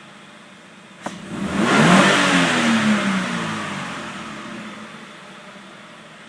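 Scion FR-S's 2.0-litre flat-four boxer engine on its stock air intake, idling, then revved once about a second in. The pitch climbs quickly, then falls slowly back to idle over a few seconds.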